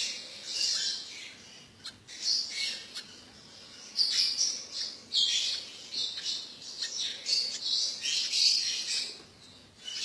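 Lovebirds chirping and squawking: repeated short, high-pitched calls.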